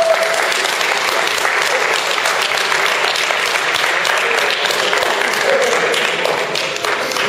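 Crowd applauding, a steady patter of many hands clapping in a large hall, easing off slightly near the end.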